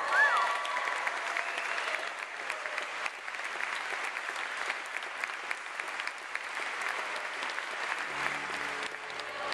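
Church congregation applauding steadily for the bride and groom's kiss, with a rising-and-falling whoop right at the start. Low held notes come in near the end.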